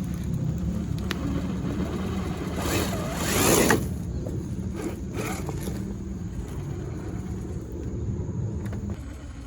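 RC crawler truck's brushed electric motor and drivetrain running with a steady whir, with a loud scrape about three seconds in and a few fainter scrapes just after.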